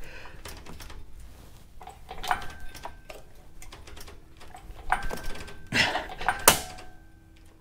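Engine hoist being pumped against a stuck car seat: scattered metallic clinks and creaks from the hoist and its taut chain, with a few short squeaks, as the strain starts to lift the car off its tires. Two louder knocks come near the end.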